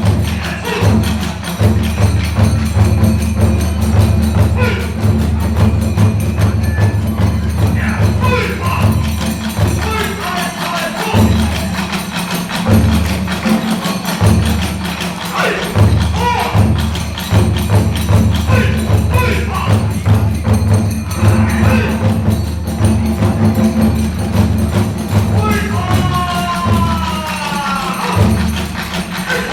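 Kagura hayashi accompaniment: ōdaiko and kodaiko drums beating a fast, steady rhythm with tebyoshi hand cymbals clashing, and a gliding high melodic line near the end.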